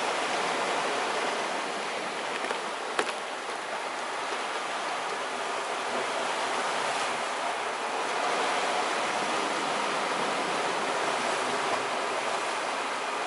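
Sea waves washing steadily against a rocky shore, swelling and easing a little, with a single sharp click about three seconds in.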